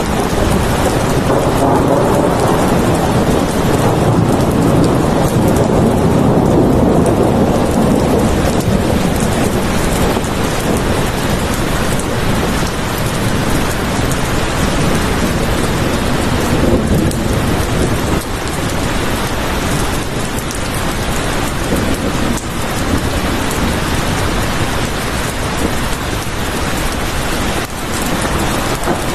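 Heavy rain falling steadily, a dense even hiss, with a low rumble of thunder swelling over the first several seconds before settling back.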